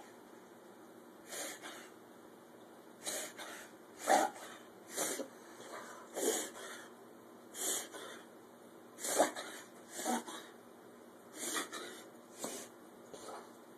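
Pit bull making a repeated short nasal noise, about one every second and sometimes two in quick succession, each a breathy burst with a quick drop in pitch.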